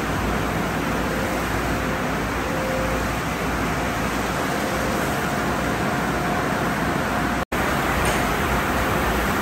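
Steady rush of water spray and spinning cloth wash brushes in an automatic car wash tunnel, broken by a momentary dropout near the end before the same steady wash noise resumes.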